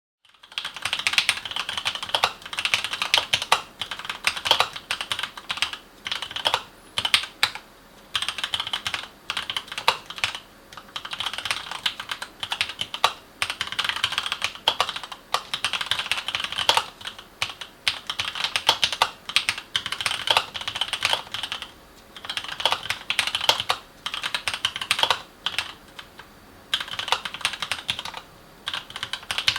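Typing on a Keychron K8 mechanical keyboard with brown tactile switches: a quick, steady run of tapping keystrokes in bursts with short pauses, starting about half a second in. The uploader calls it a fairly loud typing sound for a mechanical keyboard.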